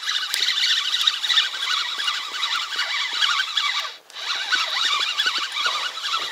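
Spinning reel being cranked, a fast gritty whirr as line is wound in. It stops briefly about four seconds in for a new cast into the current, then cranking starts again.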